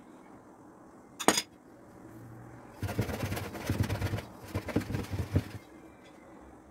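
A spoon clinks once sharply against an aluminium jam basin. A couple of seconds later comes a few seconds of scraping and knocking as the basin is gripped with a cloth and shifted about on the worktop.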